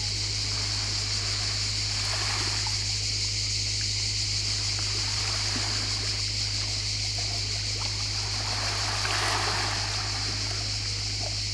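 Beach ambience: a steady high hiss over a constant low hum, with gentle lapping of a calm sea at the shoreline swelling softly about two seconds in and again about nine seconds in.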